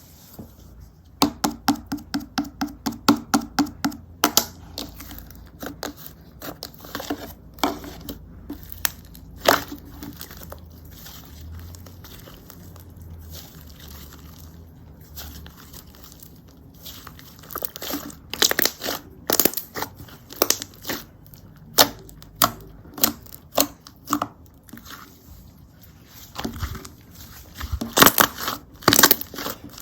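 Pastel slime being squished and poked by hand, giving sharp sticky clicks and pops: a fast regular run of about seven clicks a second for a few seconds near the start, then scattered clicks and short clusters, loudest near the end.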